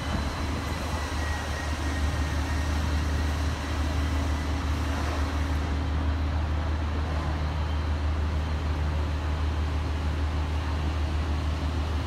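Steady low rumble of building-site background noise, with faint humming tones wavering in and out.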